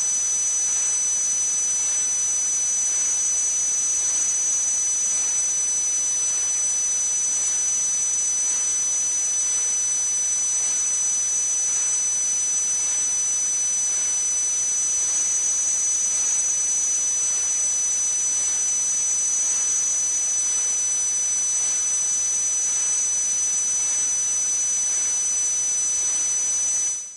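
Tinnitus sound effect: a steady high-pitched ringing made of a few close tones over a constant hiss, fading out quickly at the end.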